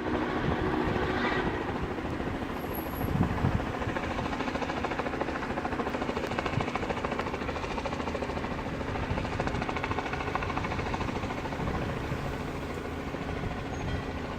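Norfolk & Western Class J 611 steam locomotive running, with a steady fast beat of exhaust and train noise at an even level.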